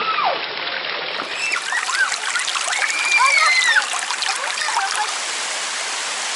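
Spring water gushing out and splashing down into a stream in a steady rush, with a few short rising-and-falling calls heard over it.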